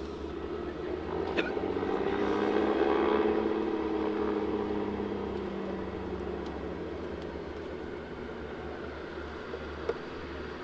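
Twin Lycoming six-cylinder piston engines of a Dornier Do-28D-2 Skyservant running as it taxis. The engine note swells to its loudest about three seconds in, its pitch lifting and then dropping, and then settles to a quieter, steady run. A short click comes near the end.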